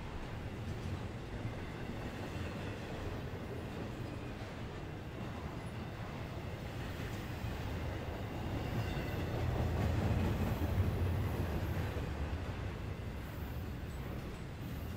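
Norfolk Southern intermodal freight train's trailer-carrying flatcars rolling past: a steady rumble of steel wheels on rail that swells a little louder about ten seconds in.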